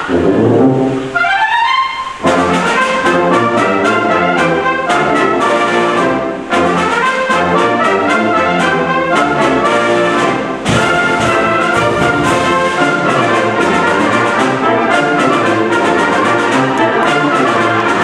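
Full concert wind band playing, with brass prominent over woodwinds. It opens with a rising slide in pitch over the first two seconds, then settles into loud, busy full-band chords.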